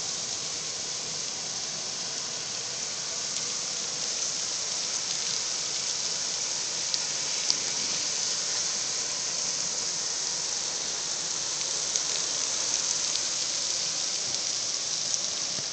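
Steady rain falling during a thunderstorm: an even hiss with a few faint sharp ticks of drops hitting nearby.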